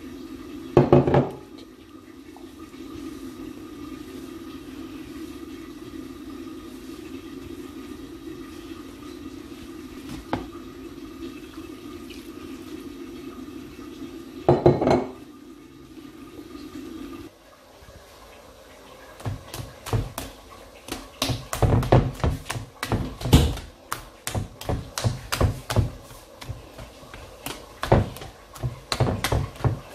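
Waffle batter being mixed by hand in a bowl: a utensil knocking and scraping against the bowl through the wet batter, in quick irregular strokes through the second half. Before that, a steady low hum with two brief louder noises.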